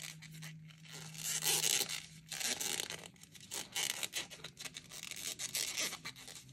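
A large plastic crochet hook drawing T-shirt yarn through stitches as single crochets are worked: a run of irregular scraping, rubbing strokes of the fabric strands dragging against the hook and the stitches.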